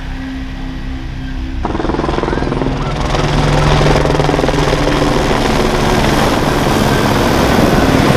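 An engine running for the first second and a half, then an abrupt switch to a helicopter's rotor and engine noise close overhead, growing louder about three seconds in. The helicopter is a firefighting helicopter carrying a water bucket.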